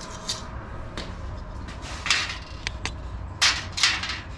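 Thin aluminum brackets and ribs handled on a workbench: a few short scrapes and light metallic clinks, the loudest cluster near the end.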